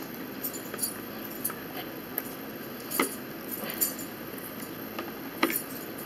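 Metal forks clicking and scraping against plastic bowls during a meal: scattered light clicks, with two sharper ones about halfway through and near the end.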